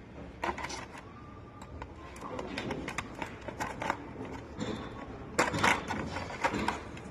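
Metal hand tools clicking and clinking against engine parts as an engine with a cracked cylinder block is taken apart. The clicks come at irregular intervals, with a cluster of louder ones about five and a half seconds in.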